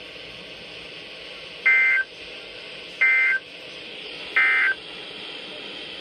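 NOAA Weather Radio receivers playing the EAS/SAME end-of-message data: three short identical buzzy two-tone data bursts, about a second and a third apart. They mark the end of the tornado warning broadcast.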